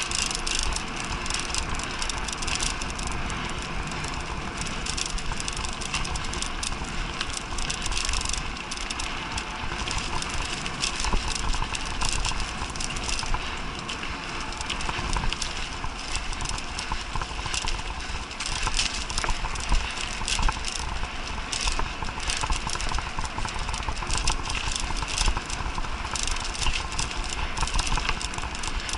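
Mountain bike ridden fast over a bumpy forest dirt trail: continuous rattling and clicking of the bike over the bumps, over a steady low rumble of tyres on the ground.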